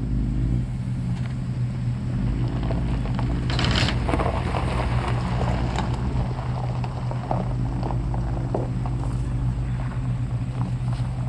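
A vehicle engine running steadily with a low drone and wind noise, with a brief louder rush of noise about three and a half seconds in.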